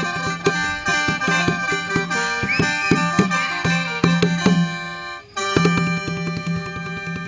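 Khaen, the Isan bamboo free-reed mouth organ, playing a tune in sustained chords over steady drone tones, accompanied by percussion beats. It breaks off briefly about five seconds in, then resumes.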